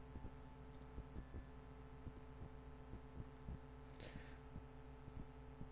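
Near silence: a steady low electrical hum with scattered faint soft thumps, and a brief hiss about four seconds in.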